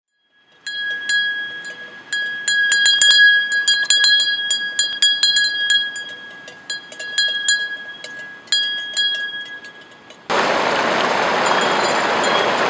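Metal cowbells on grazing cows clanking irregularly, several strikes a second with a ringing tone. About ten seconds in this cuts abruptly to the steady, loud rush of whitewater rapids.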